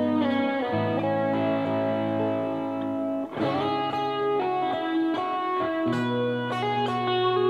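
Tokai ST Stratocaster-style electric guitar played solo in an improvised line of sustained notes over a held low note. The notes are struck anew about three seconds in.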